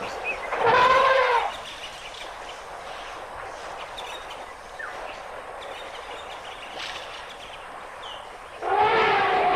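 African elephant trumpeting: a short, loud, horn-like blast about a second in, then a longer run of trumpet calls starting near the end.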